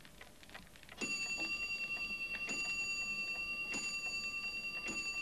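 A clock ticking, starting about a second in. A sharper tick comes about every second over a fast, even pulse, with a steady high ringing tone underneath.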